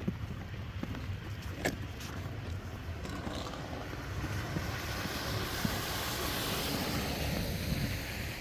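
A car passing, its tyres hissing on the road: the hiss builds over a few seconds, is loudest about two thirds of the way in, then fades, over a steady low rumble.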